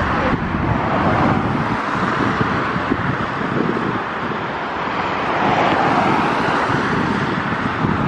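Jet airliner's engines at takeoff power as it departs, a steady roar that swells slightly near the end, with gusting wind buffeting the microphone.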